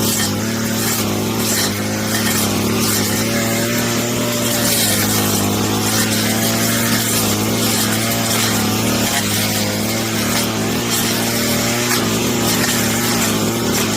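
Brush cutter fitted with a metal blade running steadily at high speed while cutting mulberry branches, with brief clicks scattered through the steady engine note.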